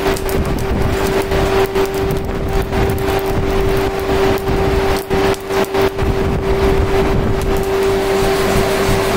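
Forge air blower running with a steady hum over the rush of a blown coal fire. There are a few brief clicks midway through.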